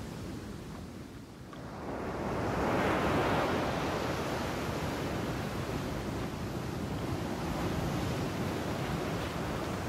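Steady rush of sea waves and wind, swelling about two seconds in and then holding steady.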